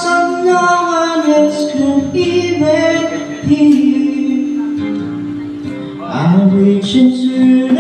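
A man singing into a microphone with long held notes, over instrumental accompaniment.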